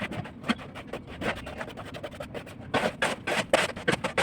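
Irregular scraping and knocking at a building site, a quick uneven run of short scrapes and knocks with no steady rhythm.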